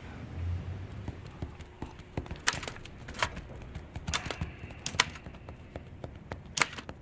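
Manual typewriter keys pecked out slowly one at a time, irregular keystrokes with uneven pauses between them.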